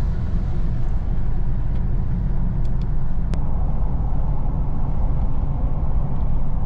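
Steady low rumble of a car's engine and tyres on the road, heard from inside the moving vehicle, with one brief click just after three seconds in.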